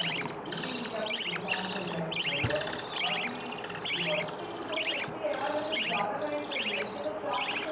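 Lovebird chicks giving short, high, buzzy begging calls, repeating about twice a second.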